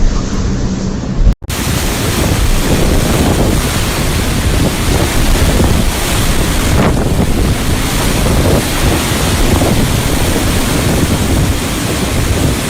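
Strong blizzard wind blowing over the microphone: a loud, steady rush of noise that starts after an abrupt cut about a second and a half in.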